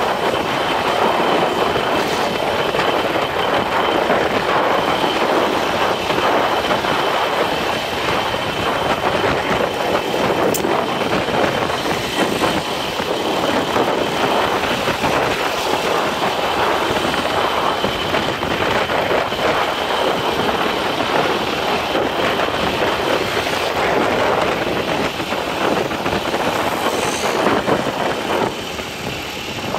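Motorcycle riding noise: a steady mix of engine and road noise at cruising speed, with a thin steady high tone on top.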